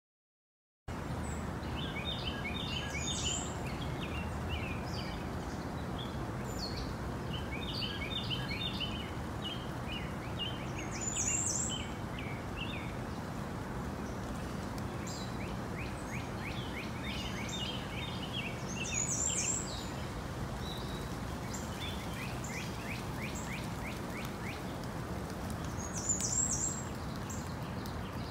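Birds chirping in short runs of quick high notes, a run every few seconds, over a steady background noise.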